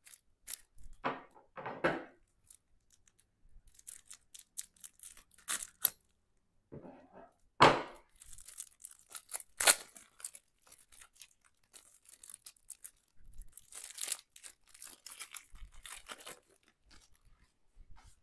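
Plastic shrink-wrap being picked at and torn off a deck of game cards: irregular crinkling and tearing, with louder rips near the start and about halfway through.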